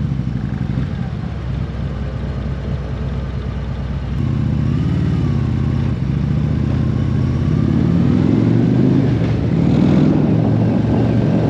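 Harley-Davidson motorcycle's V-twin engine running at low speed, then pulling away about four seconds in, its pitch rising as it accelerates.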